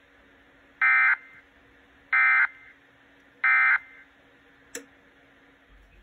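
Three short bursts of NOAA Weather Radio SAME digital data warble, each about a third of a second long and about 1.3 s apart: the End of Message code that closes the alert broadcast. A single click follows near the end.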